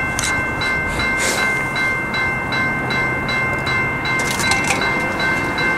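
Railroad grade-crossing warning bell ringing in rapid, even dings, about two or three a second, as the flashing crossing signals warn of an approaching train.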